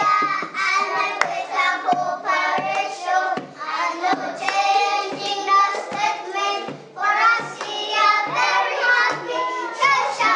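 A group of children singing a song, with a hand drum struck with the palms beating time under their voices.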